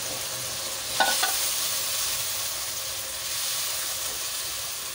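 Oily curry gravy sizzling in a non-stick wok as a spatula stirs freshly added boiled lentils through it, with two brief knocks about a second in.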